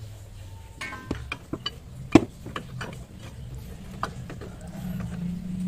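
Irregular clicks and metal knocks of hand tools working on the engine-mount bolts, with one sharp knock about two seconds in. A low hum comes in near the end.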